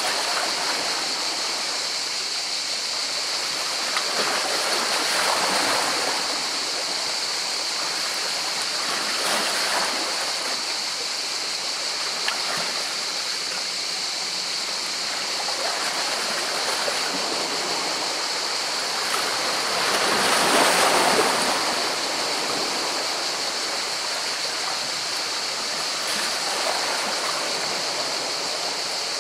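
Sea waves washing in against rocks, a steady rush of water that swells several times, most strongly about two-thirds of the way through.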